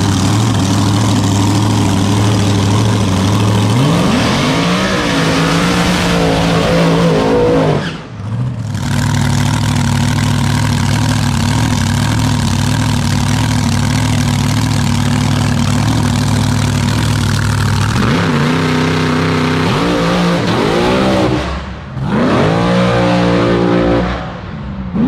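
Rear-engine dragster's engine running loud at steady high revs, with revving rises in pitch and two brief dips, then pulling hard with a climbing pitch as it makes its pass; near the end the driver lets off the throttle.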